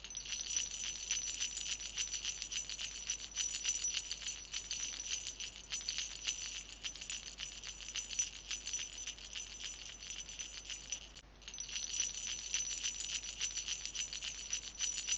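Sleigh bells jingling continuously in quick shakes, with a short break about two-thirds of the way through before they start again.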